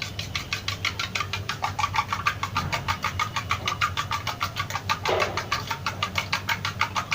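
Egg-and-milk cake batter being whisked by hand, the utensil clicking against the side of its container in a fast, even rhythm of about five to six strokes a second.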